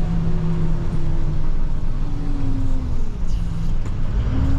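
Plow truck's engine running as it drives, its pitch slowly rising and falling with changes in speed.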